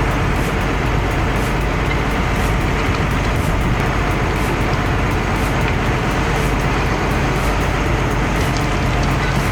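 Diesel engine of a heavy bladed machine running hard under load, a steady loud rumble with constant mechanical noise.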